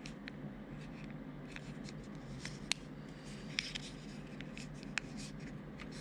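Plastic key fob shell being pressed together by hand: light handling ticks with three sharper clicks as the halves snap into place.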